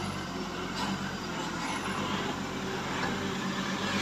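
Diesel engine of a light Mitsubishi truck running as it drives past close by, its steady hum fading soon after the start, with more truck engine noise further off.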